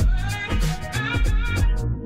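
Upbeat background music with a steady beat and a strong bass line.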